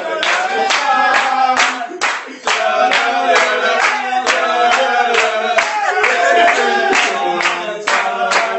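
A group of men singing loudly together while clapping in rhythm, about three claps a second, with a brief break in the singing about two and a half seconds in.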